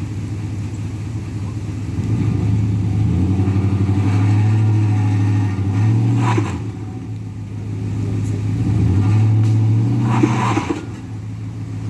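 Pickup truck engine pulling under load in two surges, first from about two seconds in and again around eight seconds, each ending with a short rasping noise. The truck is dragging a fallen tree off the road by its hitch.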